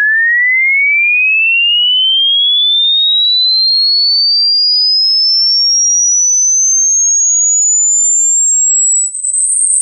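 A pure electronic test tone sweeping steadily upward in pitch, from a mid whistle to a thin high one, the kind used in a hearing-age test where the listener notes the point at which it can no longer be heard. Near the end it turns into a rougher, wavering high tone.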